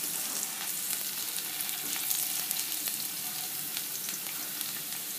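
Chopped onion frying in hot oil with tempering spices: a steady sizzle with fine crackling throughout.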